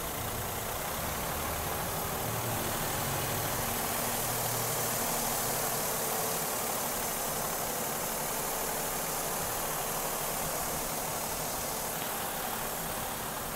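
Suzuki Karimun Wagon R's 1.0-litre three-cylinder petrol engine idling steadily with the bonnet open, running smoothly.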